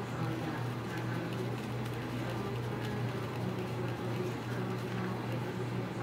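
A steady low hum, with faint handling sounds of a screwdriver driving a screw into a plastic switch handle.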